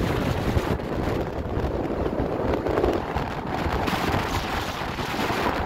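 Strong wind of over 30 knots buffeting the microphone: a loud, steady rumble with hiss above it.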